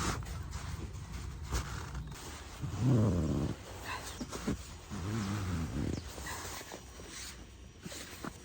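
A cat meowing twice, low drawn-out calls of about a second each with a wavering pitch, near the start of the second half and again a couple of seconds later. Scattered light clicks and knocks sound around them.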